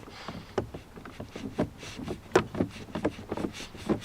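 Irregular small clicks and taps of plastic as a car door window switch is wiggled and prised out of its trim panel, one sharper click about two and a half seconds in.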